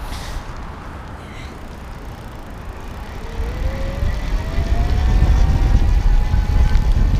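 Small rear hub motor of a Daymak New Yorker folding electric bike humming under throttle. Its whine comes in about three seconds in and rises in pitch as the bike picks up speed, then holds steady. Wind rumble on the microphone grows with the speed.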